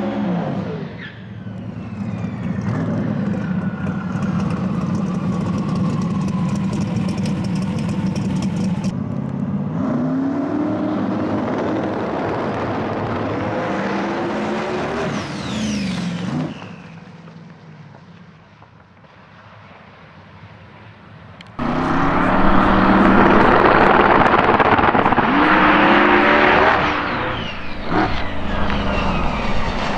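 Twin-turbo V8 drag-race Mustang: the tail of a burnout, then the engine running steadily and being blipped with rising revs. After a quieter stretch about two-thirds of the way in, it suddenly goes very loud as the car launches at full throttle down the strip.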